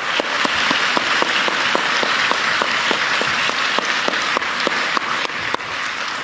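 Audience applauding: a dense, steady wash of clapping with sharper individual claps standing out, easing off slightly near the end.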